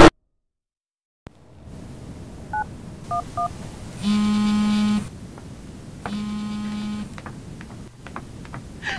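A telephone call being placed to 911. The line clicks open with a faint hiss, and three touch-tone digits are keyed in quick succession. The ringing tone then sounds twice, about a second each with a second's gap, and a third ring starts just at the end.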